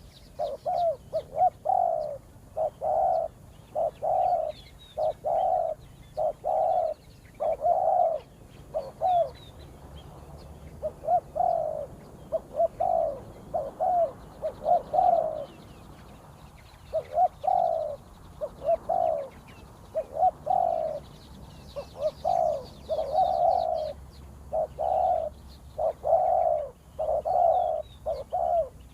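Spotted dove cooing: runs of short, loud coos repeated over and over, with brief pauses about ten and sixteen seconds in. Faint chirps of small birds sound above it.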